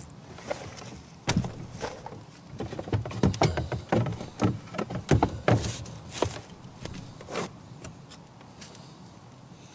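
Handling noise of gear being moved and set down on a small boat: a quick run of knocks, taps and clatter, thickest and loudest in the middle and dying away after about seven seconds.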